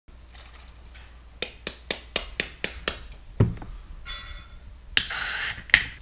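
A quick run of about seven light taps on an aluminium drink can, a dull knock, then the can is cracked open: a sharp burst of carbonation hiss for about half a second, ending in a sharp click.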